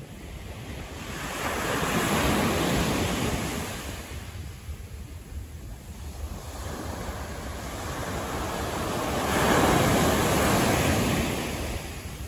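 Two vehicles passing on a city street, each a rush of tyre and engine noise that swells and then fades, the second building more slowly, over a steady low traffic hum.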